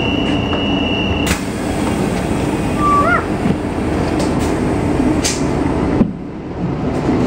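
Steady high warning tone of an NS ICMm (Koploper) train's door-closing signal, cutting off about a second in with a clunk as the doors begin to shut, over the steady rumble of the train. A couple of further clunks follow as the doors close, and the noise turns quieter near the end once they are shut.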